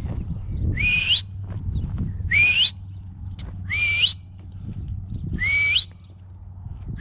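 A man whistling to call a yearling horse: four short whistled notes about a second and a half apart, each holding a pitch briefly and then sliding upward.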